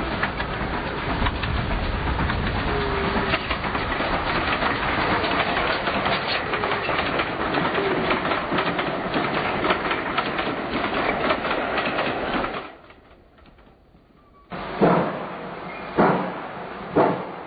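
Passenger coaches hauled by the GWR Castle-class 4-6-0 steam locomotive Defiant rolling past, a steady rumble and clatter of wheels on rail that fades out about three-quarters of the way through. Near the end, a run of sharp thumps comes about once a second.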